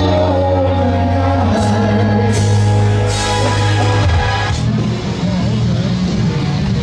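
Live rock band playing loudly: heavy bass notes, drums with cymbal hits and guitar under a man's singing. The sound changes about four and a half seconds in.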